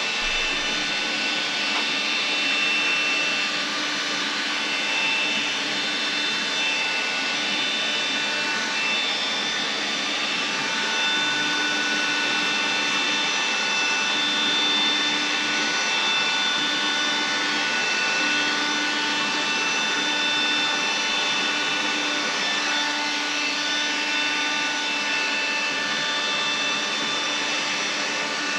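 Small handheld vacuum cleaner running steadily, a continuous whining hum with several steady tones, as it is passed over a resin table top to suck up white resin chips from drilled-out holes.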